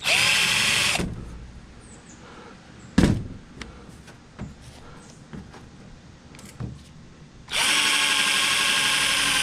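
Cordless drill running in two bursts: first for about a second, then again for the last two seconds or so, boring a shallow recess into a metal plate. A single sharp knock comes about three seconds in.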